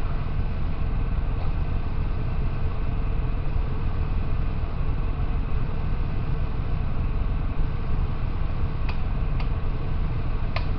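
Steady low rumbling hum, machine-like, with a few light clicks near the end.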